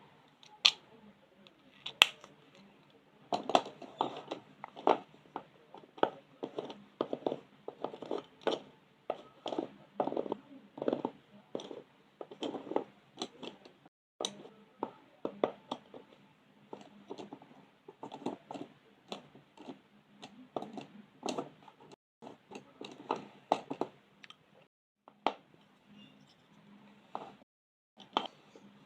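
Colouring strokes on paper: short, quick scratching strokes of a colouring tool on a colouring-book page, about one to three a second, with a few brief pauses near the end.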